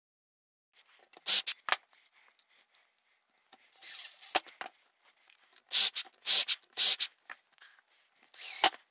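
Cordless impact driver driving screws through a steel toggle clamp's base into a plywood jig, in a series of short bursts about a second apart with sharp clicks between.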